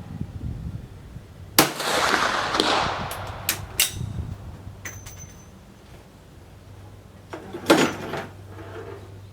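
Swiss Vetterli rifle firing one shot with a handloaded centerfire cartridge: a sharp crack about a second and a half in, followed by about a second of echo. Several quick sharp clicks follow, and near the end comes another loud sharp knock.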